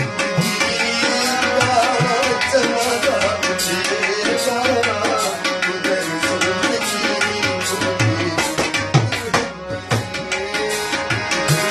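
Instrumental passage of harmonium and tabla. Held reedy harmonium notes carry a melody while the tabla keeps the beat with repeated deep bass strokes and sharp treble strokes.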